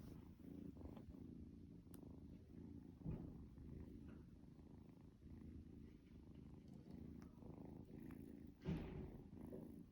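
A kitten purring faintly and steadily, with two brief louder bumps, about three seconds in and near the end.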